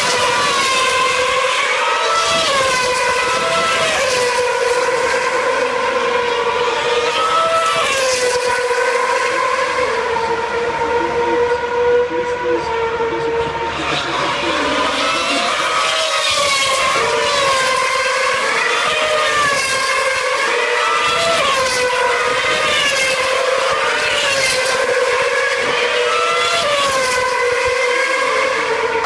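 2013 Formula One cars' 2.4-litre V8 engines at high revs, several at once, their pitch climbing and dropping again and again with gear changes as they brake and accelerate around the circuit.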